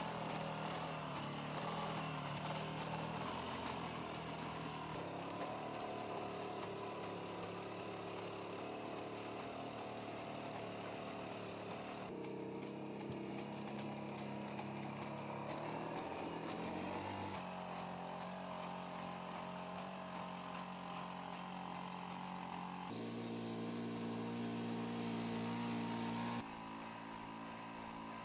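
The engine-driven hydraulic power unit of DARPA's LS3 four-legged pack robot runs with a steady mechanical drone as the robot walks. Its pitch and loudness jump several times through the stretch.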